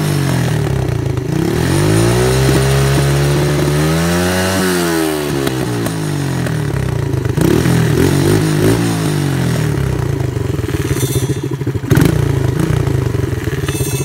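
A 110cc ATV's small single-cylinder four-stroke engine revving with its drive chain off, so it spins free with no load: one long rev climbing for about three seconds and falling back, then a couple of shorter blips, then running steadily. A single sharp knock comes near the end.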